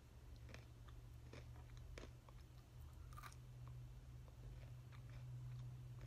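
A person chewing and biting into crunchy food close to the microphone: a few faint, short crunches, over a steady low electrical hum.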